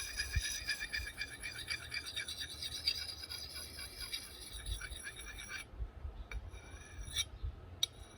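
Steel axe edge being stroked rapidly across a jade whetstone, scraping with a bright metallic ring, stopping abruptly about halfway through, followed by a few separate clinks of metal against the stone.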